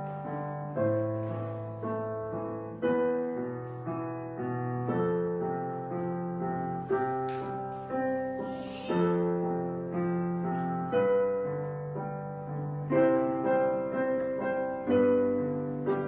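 Slow, gentle piano music, a new note or chord struck about once a second over a low bass line.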